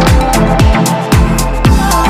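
Electronic dance music with a steady four-on-the-floor kick drum, a little over two beats a second, under sustained synth chords.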